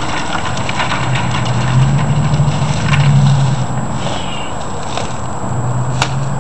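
Low vehicle engine hum that swells and fades twice, with a few light clicks and rustles as ice is shaken from a plastic bag into a plastic water cooler.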